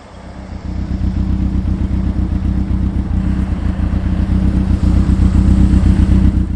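Motorcycle engine running with a steady low throb, building over the first second and then holding.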